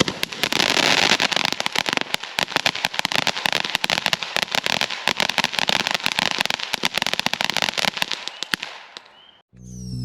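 Small dog-shaped fountain firework spraying sparks, a dense crackle over a steady hiss, which thins out and dies near the end as the fountain burns out. Music starts just before the end.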